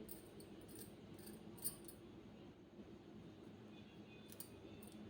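Near silence: room tone with a few faint, short high clicks scattered through it, the loudest about a second and a half in.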